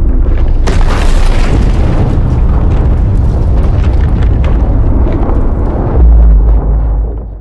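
Film sound effect of a massive explosion: a sharp burst about a second in, then a continuous heavy rumble, a deeper low boom near the end, and a fade-out.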